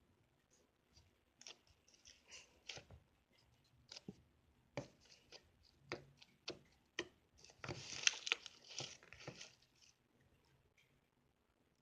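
Slime being handled: faint scattered sticky clicks and squishes, with a denser stretch of crackling about eight seconds in.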